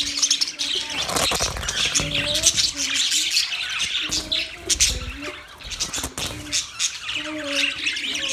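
A group of budgerigars chattering, a continuous mix of rapid chirps, clicks and squawks with recurring lower wavering calls.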